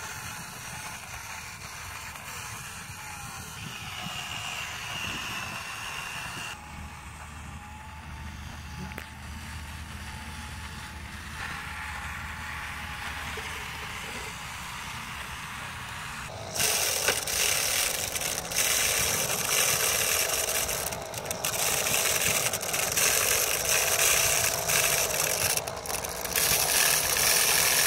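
Small electric motor of a miniature model tractor running with a faint thin whine, with the scraping and crunching of its wheels through sand. About sixteen seconds in, the sound turns louder and rougher.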